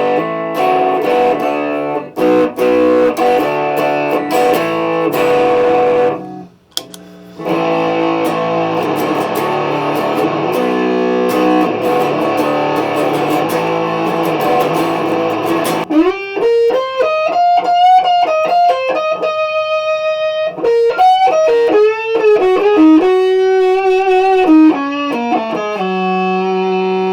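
Stratocaster electric guitar played through a home-built Tone Bender MK 1.5 germanium-transistor fuzz pedal into an amp. It starts with fuzzy strummed chords, briefly stopping about a third of the way in, then moves to single-note lead lines with string bends and held notes.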